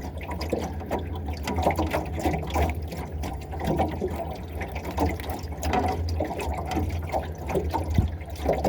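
Water splashing and sloshing as a big hooked largemouth bass thrashes at the surface while being landed, over a steady low hum.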